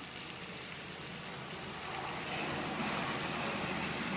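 Water running out of a leaking hot water heater tank in a steady rush that grows louder about two seconds in.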